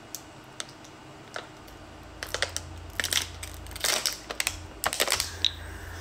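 Thin disposable plastic water bottle crinkling and crackling as it is squeezed and tipped while someone drinks from it, in clusters of sharp crackles from about two seconds in until just past five seconds.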